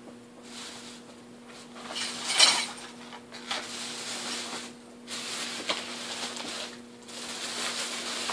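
Rummaging and handling of items: bursts of rustling with a few light knocks, loudest about two and a half seconds in.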